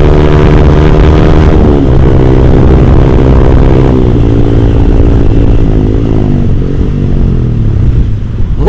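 Yamaha R15 V3's single-cylinder engine running loud through an R9 GP-series aftermarket exhaust while riding. The pitch holds steady and then drops in steps a few times, and near the end there is a quick sharp rev that rises and falls.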